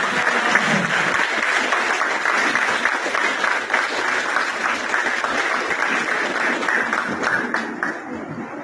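Audience applauding, many hands clapping together; the clapping eases off a little near the end.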